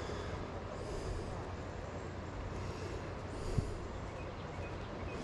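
Steady outdoor rumble of river water and wind on a chest-mounted camera's microphone, with one short knock about three and a half seconds in.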